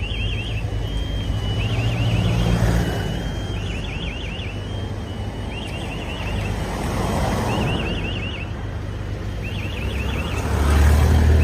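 An electronic alarm warbling in short bursts of quick chirps, repeating about every second and a half, over a steady low rumbling noise.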